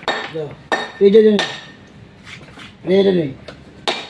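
Irregular sharp metallic clinks of metal tools striking, each with a brief ring. Two short bursts of a man's voice, about a second in and near three seconds, are louder than the clinks.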